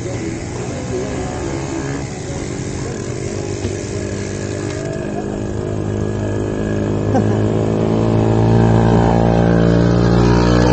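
A motor vehicle's engine running close by, steady in pitch, getting louder over the second half.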